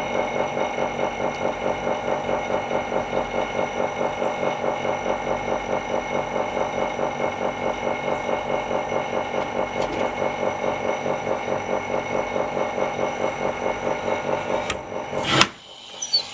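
Small vacuum pump on an OCA laminating fixture, running with a steady, rapid, even pulsing hum. It cuts out about a second before the end, with a sharp knock.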